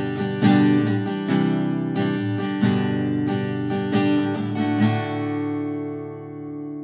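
Steel-string acoustic guitar with a cedar top and black walnut back and sides, strummed in chords. The last chord is left ringing and fades out from about five seconds in.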